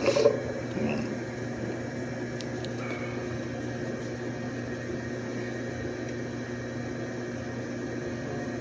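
Steady hum of running machinery. Near the start, a few quick clinks and knocks of parts being handled.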